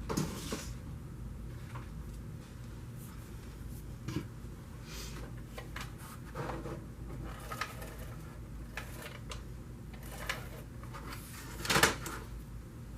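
Paper and cardstock being handled on a craft desk: intermittent soft rustles and light taps, with a louder rustle near the end, over a low steady room hum.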